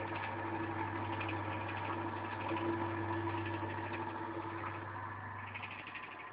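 Marelli six-pole three-phase induction motor running on single-phase 220 V through a capacitor and turning a coupled small DC motor. It gives a steady electrical hum with a whine above it, growing somewhat quieter toward the end.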